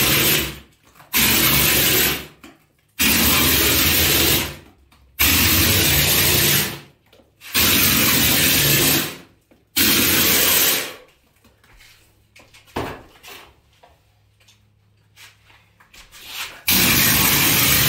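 Air-driven hopper bucket spraying plaster mortar: compressed air blasting through its nozzles in a harsh hiss, in short bursts of one to two seconds that stop and start again. Six bursts come close together, then after a pause of about five seconds the spraying starts again near the end.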